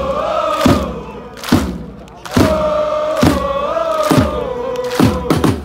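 A massive crowd of football supporters singing a long, sustained 'Oh oh oh' chant in unison, with a heavy thud on each beat a little more than once a second. Near the end the beats quicken.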